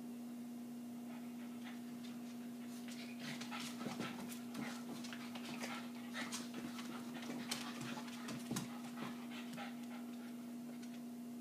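Two Silky Terriers play-wrestling: a run of short breathy dog noises and scuffles that starts about three seconds in and stops near the end, over a steady low hum.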